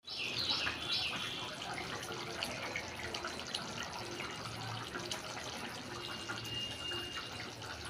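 Chicken curry simmering in a clay kadai on a gas burner, a steady bubbling with many small pops throughout.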